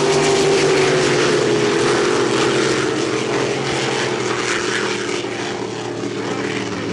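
Racing speedboat engines running at full throttle as the boats race away after the start, a steady engine note that eases down a little and fades slightly toward the end.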